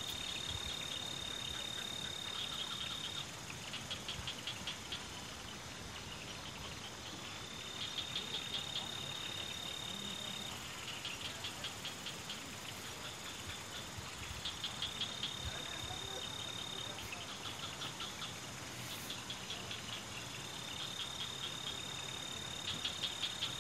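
A night insect calling: a high, steady trill held for two to three seconds, then a quick run of pulses, the pattern repeating four times about seven seconds apart. A steady even hiss runs under it.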